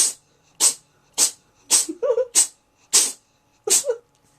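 A cat sneezing in a rapid fit: seven short, sharp sneezes in a row, about two every second.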